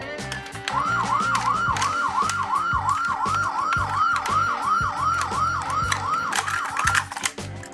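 Electronic siren of a toy emergency vehicle sounding a fast repeating rise-and-fall wail, about three cycles a second. It starts just under a second in and cuts off near the end, with many sharp clicks throughout.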